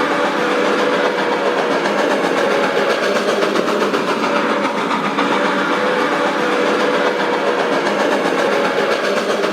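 Steam train rolling along the track at a steady level, with a faint wavering tone running through it.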